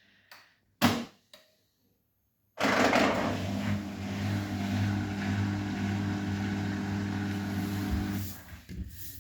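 Arçelik 9120M front-loading washing machine starting up: a few clicks, then about two and a half seconds in a sudden steady rushing sound with a low hum, which fades out near the end.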